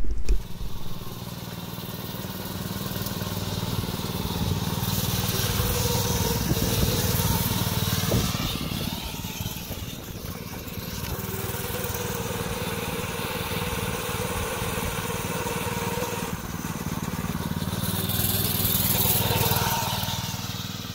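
Lifan 168F 5.5 hp single-cylinder gas engine of a kids' go kart running steadily as the kart drives along. It gets louder and quieter as the kart moves nearer and farther away, loudest near the end.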